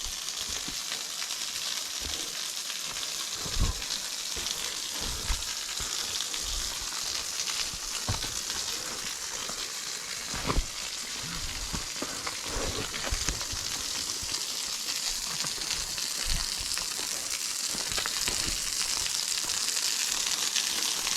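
Low-flow waterfall splashing into the canyon below, a steady hiss that grows a little louder toward the end, with a few soft low knocks.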